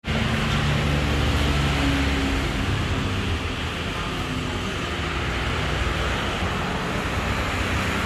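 Steady traffic noise, a constant low hum and hiss of passing vehicles with a few faint brief tones in the first few seconds.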